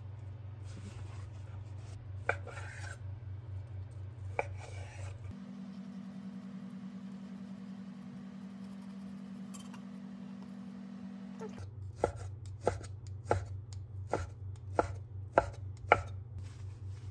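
Santoku knife slicing raw beef on a bamboo cutting board: two single knocks of the blade on the board, then a run of about seven even knocks near the end, one roughly every two-thirds of a second. A steady low hum runs underneath.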